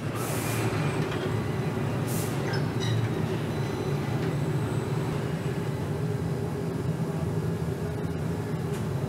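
Steady low hum of hot-forging plant machinery, with a short burst of hiss just after the start and another about two seconds in, and a few faint clinks.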